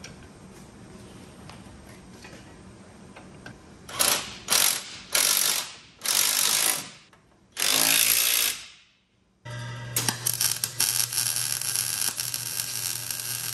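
A power tool runs in five short bursts while the steering box and support plate are bolted up on the truck. After a brief gap, a MIG welder crackles and buzzes steadily, tack-welding the steering box support plate onto the wrecker's frame.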